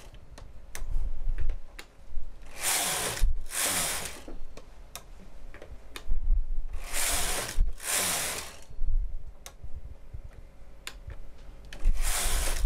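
Double-bed knitting machine carriage pushed across the needle beds, knitting two rows at a time: three pairs of short rushing passes, with small mechanical clicks between them as the tension dial is turned up one step after each pair.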